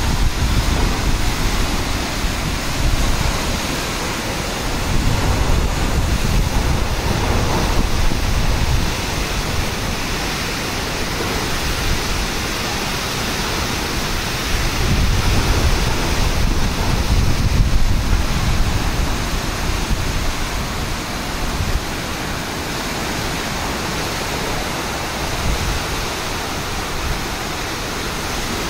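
Cyclone wind and heavy rain: a steady rush of rain with gusts that swell louder a few times.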